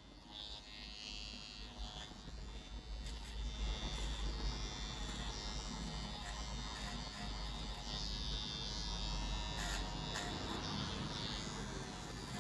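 Andis Slimline Pro GTX cordless T-blade trimmer buzzing steadily as it cuts a line into short hair around the ear.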